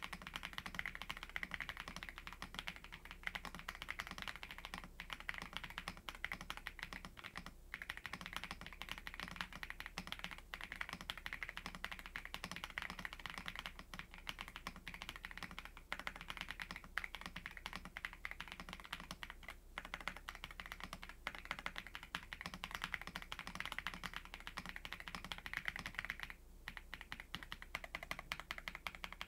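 Continuous fast typing on a Royal Kludge M87 gasket-mounted mechanical keyboard with linear cream switches and double-shot PBT keycaps: a deep clack leaning creamy, with two brief pauses.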